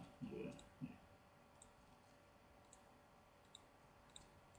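Faint computer mouse-button clicks, about one a second, over near silence, following a brief low voice sound at the very start.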